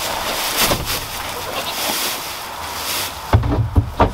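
Dry hay rustling as a square hay bale is lifted and handled, then a few dull thumps near the end as the bale is set down on end.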